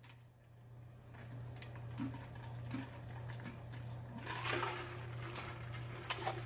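A person drinking in gulps from a large clear plastic mug, with soft swallowing sounds about once a second and a breathy rush near the middle. There are a few sharp clicks near the end, over a steady low hum.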